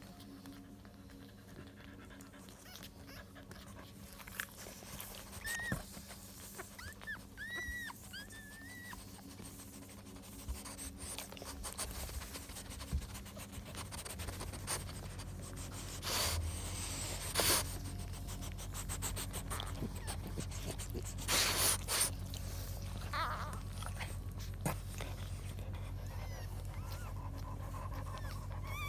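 Newborn French bulldog puppies whimpering, with a run of short high squeaks about six to nine seconds in. A couple of louder rustles of handling come later.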